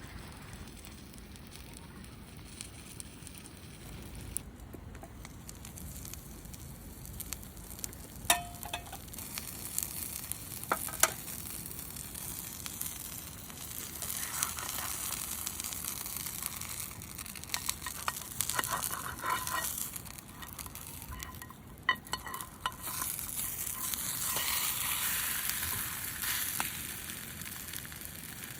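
Food sizzling as it fries in a pan, with sharp clicks from a utensil stirring it; the sizzle swells louder about halfway through and again near the end.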